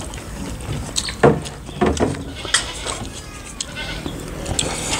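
A goat bleating in a few short calls in the first half.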